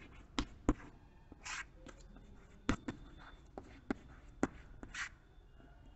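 Chalk writing on a chalkboard: sharp taps of the chalk striking the board at irregular intervals, with a few short scratching strokes.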